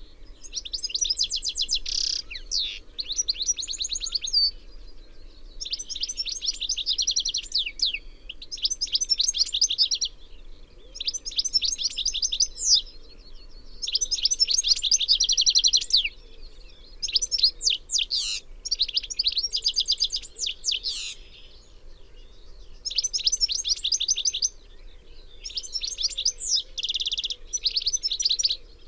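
European goldfinch singing: a run of phrases of rapid, liquid twittering and trills, each a second or two long, with brief pauses between them.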